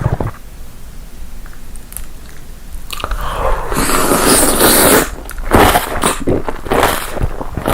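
Close-miked biting and chewing of food, quiet at first, then a dense crunching stretch from about three seconds in, followed by sharp, crackly bites.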